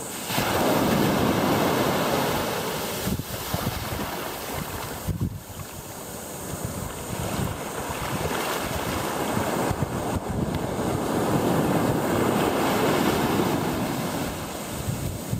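Ocean surf washing up a sandy beach: one surge right at the start and a longer one building through the second half, with wind buffeting the microphone.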